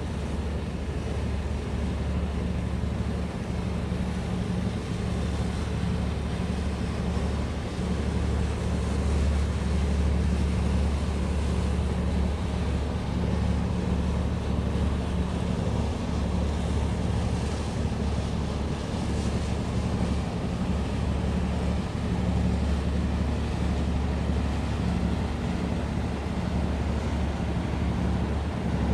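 Low, steady drone of marine diesel engines from a container ship and its tugboat moving slowly through the harbour, with some wind noise on the microphone.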